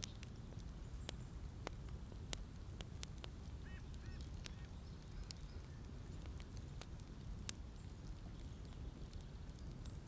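Campfire crackling: scattered sharp pops and snaps of burning wood over a steady low outdoor rumble. A few faint honking bird calls about four seconds in.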